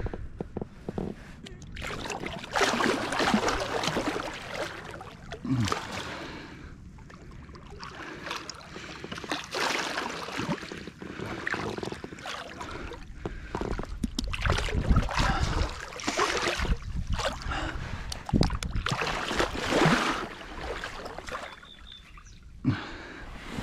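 A large wels catfish thrashing at the surface beside a float tube, churning the water in repeated bursts of splashing with quieter spells between.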